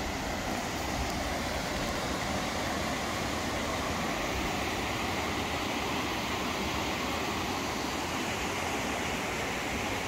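A stream running: a steady, unbroken rush of water.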